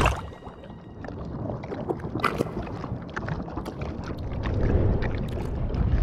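Wet, watery sound effects: scattered small pops and clicks over a low rumbling wash that grows louder toward the end.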